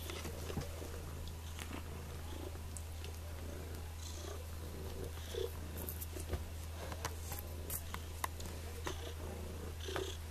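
A kitten purring steadily, with scattered light clicks and scratches while it plays.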